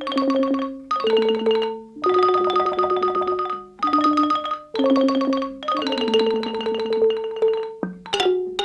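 Background music: a light, bouncy tune on mallet instruments like marimba or xylophone, in short repeated phrases.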